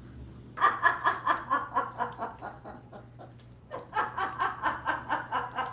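Parrot laughing: two bouts of rapid, evenly paced ha-ha-ha pulses, about five a second, with a short break between them.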